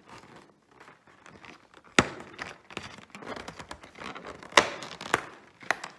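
Cardboard door of a Lindt advent calendar being pushed in and torn open by hand: rustling and crinkling, with sharp snaps, the loudest about two seconds in and again about four and a half seconds in.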